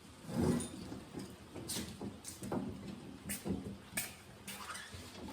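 Scattered knocks, clunks and scrapes of a steel transmission cross member being handled and set into a pickup frame, over a faint steady hum.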